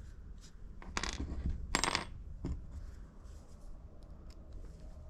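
A few small, sharp metallic clinks of a tiny screw and a hand screwdriver, as a screw is driven in to hold the outdrive of an Axial SCX24 crawler. The two loudest come about a second in and just under two seconds in.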